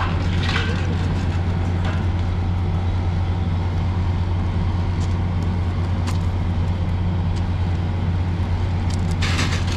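Diesel engine of a standing train idling, a steady low drone that does not change, with a few faint clicks over it.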